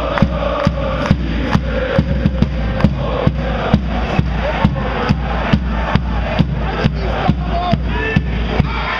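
Football supporters singing a chant in unison, driven by a big fan drum beaten steadily about twice a second.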